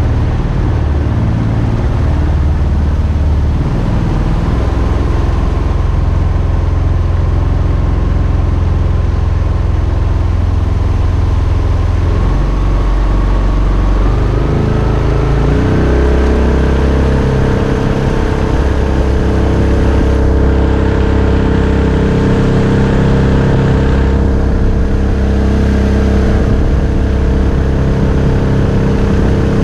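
Mokai jet boat's Subaru EX21 single-cylinder engine running steadily at low revs, then revved up about halfway through and held at a higher, steady speed.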